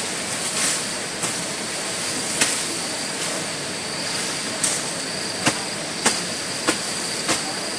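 A series of about seven sharp knocks at irregular intervals over a steady rushing hiss.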